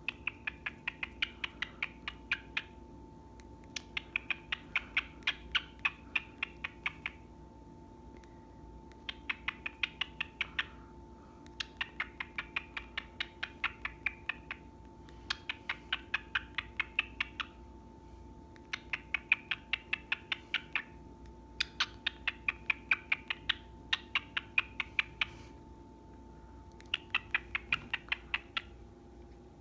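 A bird making rapid clicking, chattering notes, about five a second, in runs of two to three seconds separated by short pauses. A steady low hum runs underneath.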